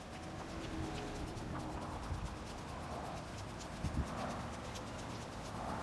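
Footsteps of a person walking, a run of light clicks and soft thumps.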